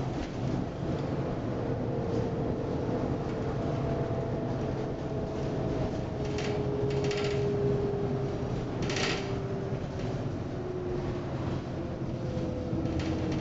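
Inside an MCW Metro-Scania single-deck bus under way: the engine and driveline run with a steady low drone and a whine that drifts up and down in pitch as the speed changes. Short rattles from the body and fittings come a few times around the middle.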